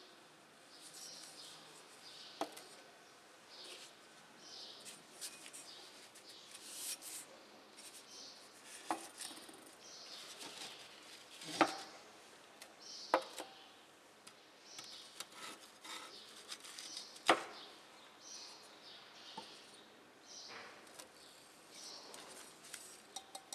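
Glass beaker, fire brick and small crucible dish handled on a wooden table: a few sharp knocks and clinks as things are set down, then a quick run of light glass taps near the end as the beaker is tapped over the dish to empty out the silver powder.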